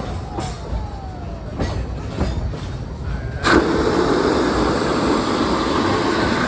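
Narrow-gauge steam train running, with a low rumble, a few clicks and short falling squeals from the wheels. A little over halfway in, a loud steady rushing noise comes in suddenly and carries on.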